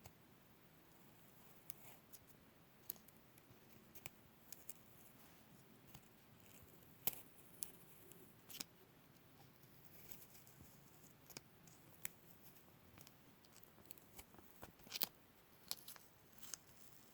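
Adhesive tape being peeled and handled close to the microphone: soft sticky crackles with scattered sharp snaps, the loudest about seven seconds in and again near the end.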